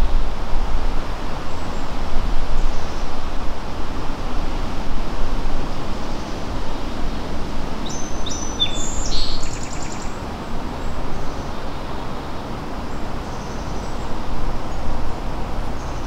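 Woodland ambience: a steady rushing noise with a strong low rumble. A bird sings a short burst of high chirping notes about eight seconds in, with a few faint calls elsewhere.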